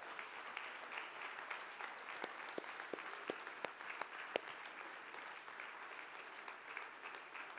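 Congregation applauding: many hands clapping steadily.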